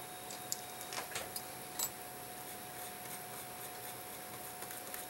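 A few faint, light clicks in the first two seconds as small metal parts and a tool are handled on a ladies' Benrus CA1 watch movement. Behind them is a steady low hiss with a faint continuous hum.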